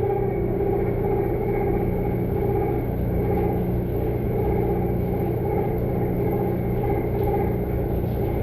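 Mori Seiki NT5400/1800SZ CNC turning center running under power: a steady whine from its motors over a low hum.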